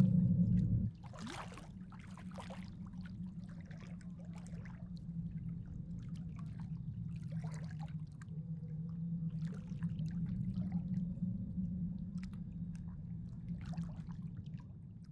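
A loud low rumble for about the first second, then a steady low drone with scattered clicks and crackles over it, fading out near the end.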